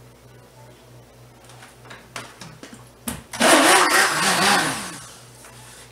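A stick blender runs in one burst of about two seconds, starting about three seconds in, its motor pitch wavering up and down as it mixes soap batter. Before it come a few short clicks and scrapes of a silicone spatula against a plastic jug.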